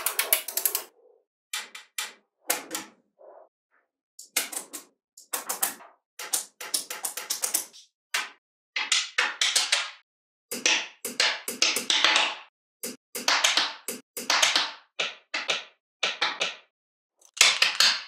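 Small magnetic balls snapping and clicking together in quick rattling runs. The runs come as short bursts about once a second, with brief silent pauses between.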